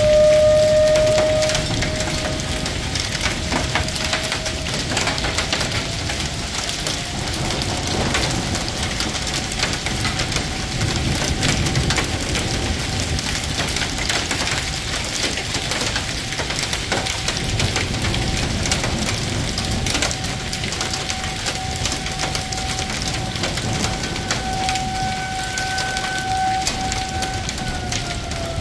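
Hail pelting down on pavement and parked cars: a dense, steady crackle of small hard hits, loudest right at the start. A steady high tone runs underneath, rising slightly about five seconds in and dropping near the end.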